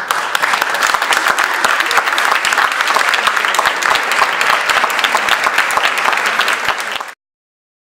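An audience applauding, many hands clapping at once, which cuts off suddenly about seven seconds in.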